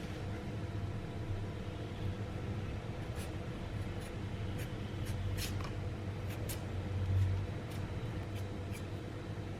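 Scattered light clicks and taps of food items and containers being handled on a kitchen counter, over a steady low hum.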